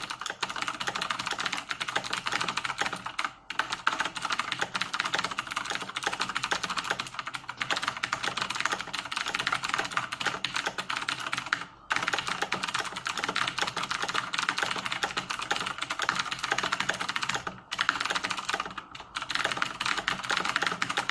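Rapid, continuous typing on a Razer BlackWidow Ultimate 2016 mechanical keyboard, with its clicky Razer Green switches clattering. There are a few brief pauses.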